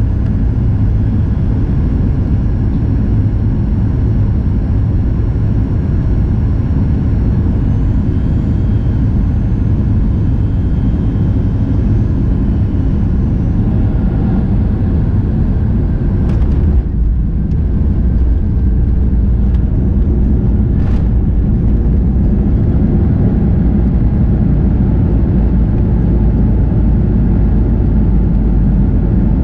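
Jet airliner landing, heard from inside the cabin at the window: a steady, loud rumble of engines and rushing air. There is a short knock about halfway through and another a few seconds later, then the rumble grows heavier as the aircraft rolls out along the runway.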